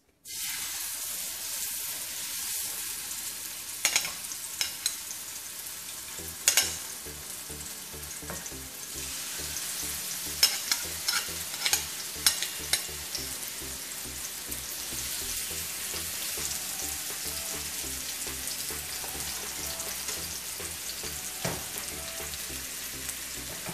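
Spice-marinated chicken breasts sizzling in hot oil in a nonstick frying pan, the sizzle starting as the first piece goes in and running steadily. Sharp pops and clicks come now and then, most of them in the first half.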